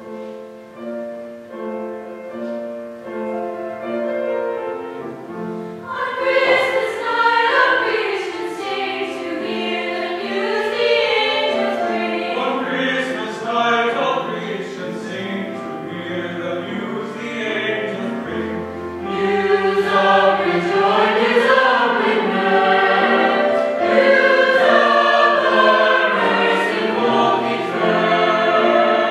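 Mixed choir singing a carol. It starts softly and grows fuller and louder about six seconds in.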